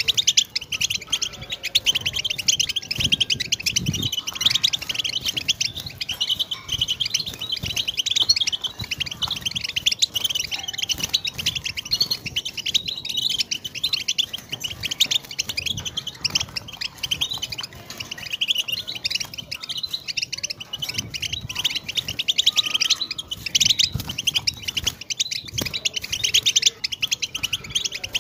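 European goldfinch singing: a continuous, fast twittering song of rapid chirps and trills with no pauses.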